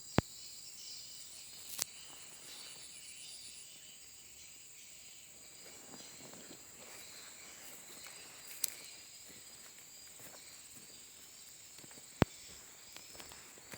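Swiftlets in a swiftlet house with the lure-call speaker switched off: faint twittering chirps over a steady high hiss, broken by four sharp clicks.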